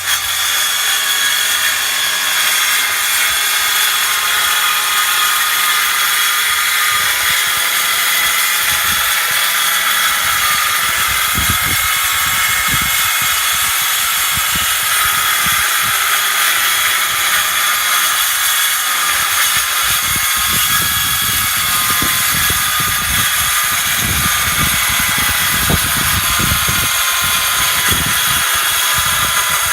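Electric circular saw running steadily while it rips along a timber board, the blade biting into the wood with an uneven low rumble through much of the cut.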